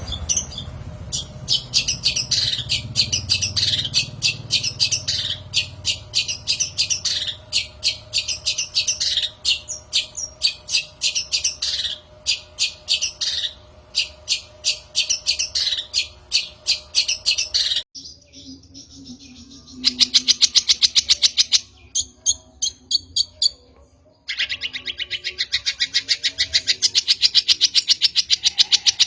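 Long-tailed shrike (cendet) calling: a quick series of sharp, chattering notes, several a second. After an abrupt cut a little over halfway through, it gives two long bursts of very fast rattling trills.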